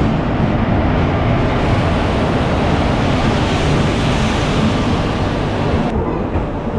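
WAP4 electric locomotive and its passenger coaches rolling past close by as the train runs in along the platform: a steady, loud rumble of wheels on rails. It is brightest while the locomotive passes, and the hiss eases a little about six seconds in as the coaches follow.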